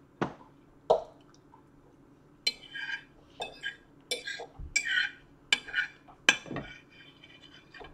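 Metal fork scraping and clinking on a dinner plate: a dozen or so short scrapes and taps as the last of the pasta and sauce is gathered up.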